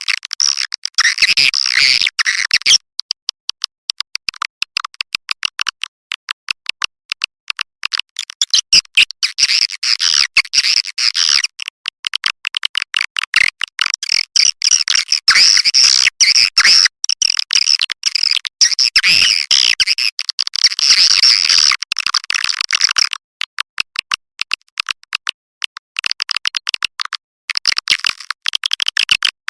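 Recorded swiftlet calls used as a call sound to lure swiftlets into a nesting house: a dense, rapid, high-pitched twittering of many birds, with short breaks about 3 seconds in and again about 23 seconds in.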